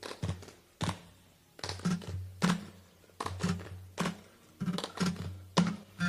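Acoustic song intro in which the ringing guitar chords drop out and a rhythm of sharp percussive taps and low thumps carries on, about two a second, before the strummed chords come back in at the end.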